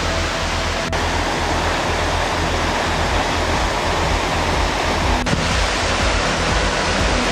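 Fast mountain creek rushing over rocks: a steady, even wash of whitewater noise.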